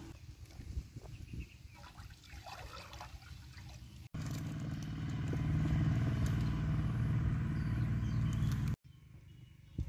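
Faint clatter and handling of food and water in a wok and basket; then, after a sudden cut about four seconds in, a small engine runs steadily and loudly for about four and a half seconds before cutting off abruptly.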